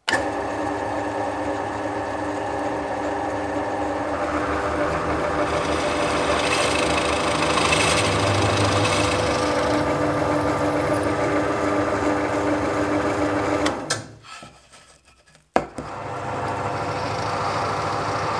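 Scheppach DP18 Vario benchtop drill press motor switching on and running with a steady hum. Its bit bores into plywood, adding a rough cutting and chip-clearing sound for several seconds. Near the end there is a brief break, then a click and the motor runs steadily again.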